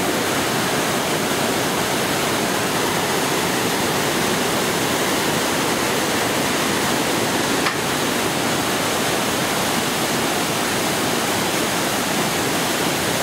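The Iguazú Falls: a huge waterfall pouring over the brink into a misty gorge, heard close up as a loud, steady, unbroken rush of water.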